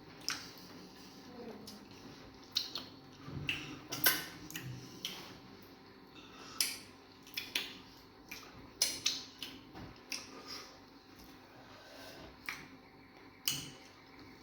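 Eating sounds of egusi soup with fufu: irregular short clicks and smacks, with occasional light knocks of bowls and utensils.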